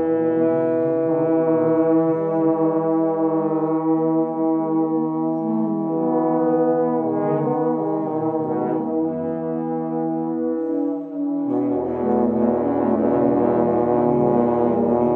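Several French horns warming up together, each in its own rhythm, with no one playing in time with the others: overlapping held notes and lip slurs up and down the harmonics on the E-horn fingering. There is a short dip a little after ten seconds, then lower notes come in.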